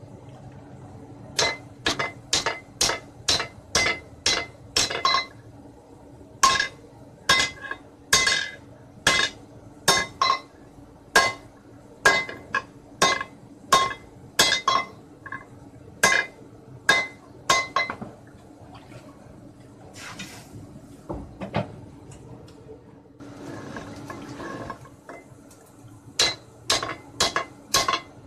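Small sledgehammer striking heated 19 mm deformed steel rebar to straighten it, blow after blow at about one and a half a second, each with a ringing metallic clink. The blows stop for several seconds in the middle, where a brief hiss is heard, then resume near the end.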